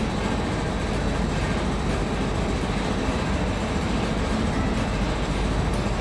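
Conveyor belt running: a steady mechanical rumble and clatter, a cartoon sound effect.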